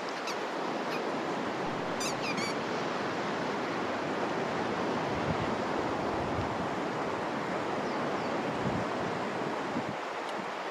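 Steady wash of sea surf on a sandy beach, with a few short high squeaks about two seconds in.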